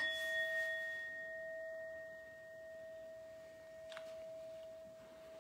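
Altar bell struck once at the elevation of the consecrated host, ringing on with a long, clear, slowly fading tone. Its higher ring dies away about four seconds in, while the lower tone lingers.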